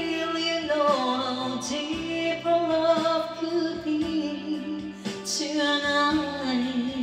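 Woman singing a slow pop love ballad into a microphone over an instrumental backing track, holding long notes that slide down in pitch.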